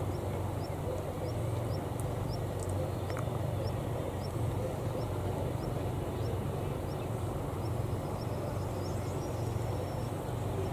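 Outdoor ambience: a steady low rumble, with a short high chirp repeating evenly a little under twice a second above it.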